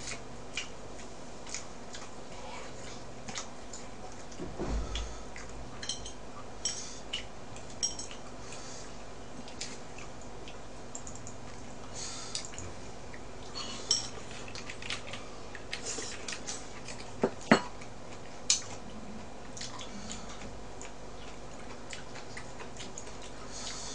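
Chopsticks clicking and tapping against plastic takeout containers and bowls during a meal: scattered light taps, with a few sharper clicks in the second half.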